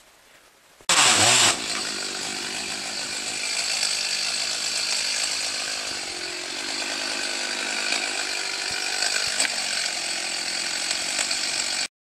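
Chainsaw starting loud about a second in, then running steadily at high speed before cutting off suddenly near the end.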